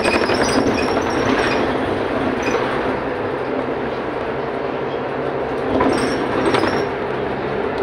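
Cabin noise inside a moving Mercedes-Benz Citaro O530 FL city bus: a steady engine and road drone with interior fittings rattling and clinking. A couple of louder rattles come near the end. The rattling fits a worn, neglected bus that shakes all over.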